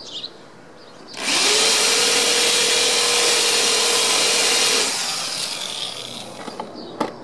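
Power drill with a countersink bit spinning up about a second in and running steadily for nearly four seconds as it cuts a countersink for a screw in a cherry wood gunwale, then winding down. A sharp click comes near the end.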